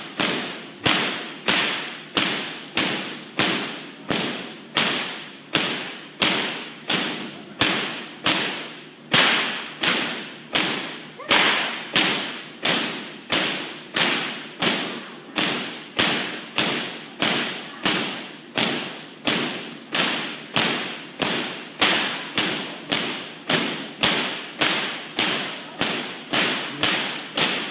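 High-voltage artificial lightning from a giant Van de Graaff generator striking a metal cage: sharp electric cracks repeating steadily, a little under two a second, each dying away quickly.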